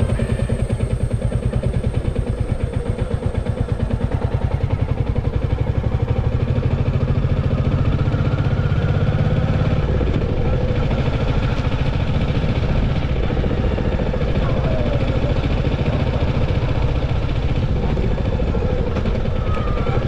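Motorcycle engine running steadily while riding along a road, heard from the rider's seat.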